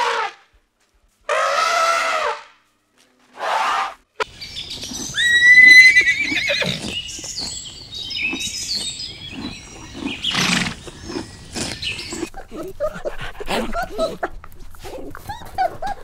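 Two short pitched animal calls in the first four seconds. Then a horse whinnies about five seconds in, a quavering high cry that is the loudest sound. A long stretch of irregular crackling and rustling follows as the horse tears and chews grass.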